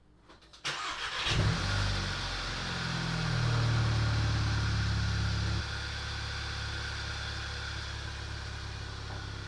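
VW Golf GTI Mk6's 2.0-litre turbocharged four-cylinder engine starting: a short crank, catching about a second in with a flare of revs, holding a raised idle, then dropping to a lower steady idle a little past halfway. It is running smoothly on freshly fitted red-top R8 coil packs, with no misfire to be heard.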